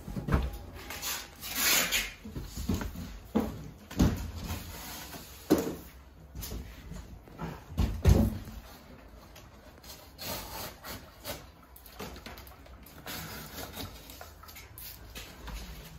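Wooden furniture and packing being handled: irregular knocks and thumps with rubbing and rustling, the loudest thump about eight seconds in.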